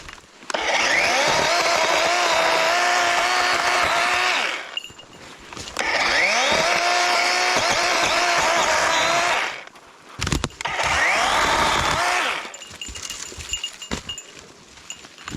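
DeWalt battery-powered chainsaw running in three bursts of about four, four and two seconds, each spinning up quickly to a steady electric whine as it cuts.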